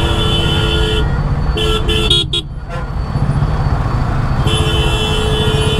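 Vehicle horns sounding in long held blasts over a steady low rumble. One blast is already going and stops about a second in, a short one comes around two seconds in, and another long blast starts near the end.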